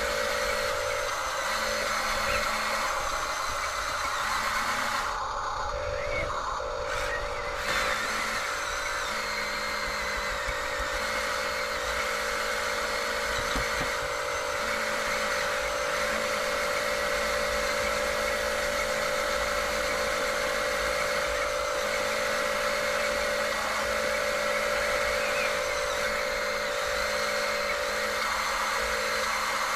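Small electric motors of radio-controlled toy construction machines running with a steady whine, a lower motor tone cutting in and out every second or two as the controls are worked.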